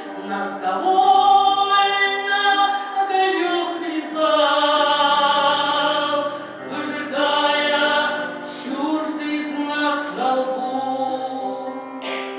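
A woman singing a slow Russian song in long held phrases that bend in pitch, over sustained instrumental accompaniment.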